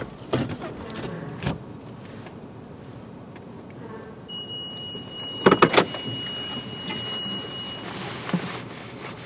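Automatic car wash heard from inside the car: a steady hiss of water spraying on the body and glass, with scattered clicks. About five and a half seconds in, three quick loud knocks, and from about four seconds in a high steady beep lasting about three and a half seconds.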